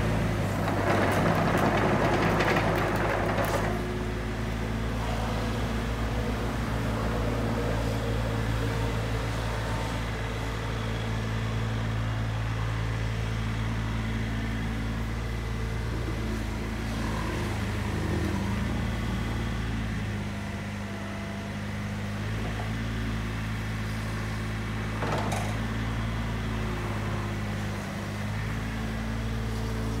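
Komatsu PC35MR-2 mini excavator's three-cylinder diesel engine running steadily while the hydraulics work the boom and swing the upper body. It is louder and rougher for the first few seconds and shifts a little in pitch now and then, with a single knock near the end.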